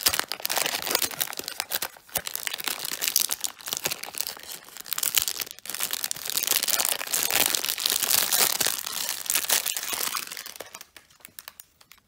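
Crinkly packaging being handled and torn open to unwrap a new puzzle cube, a dense run of crinkling and tearing that dies away about ten and a half seconds in, leaving a few small clicks.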